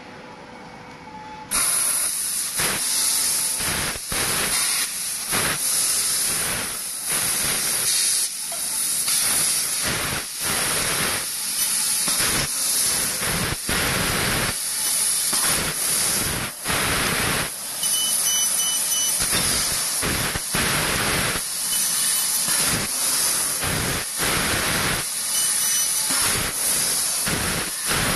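6000 W fiber laser tube cutter cutting a rectangular metal tube: a loud, steady hiss from the cutting head's assist-gas jet. It starts about a second and a half in and is broken by many short gaps, every second or two, as the head stops between cut segments.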